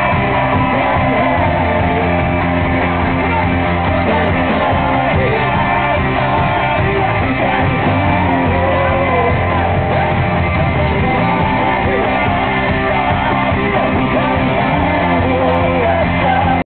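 Live rock band playing loud through a concert PA: a lead singer's voice over drums and amplified guitars.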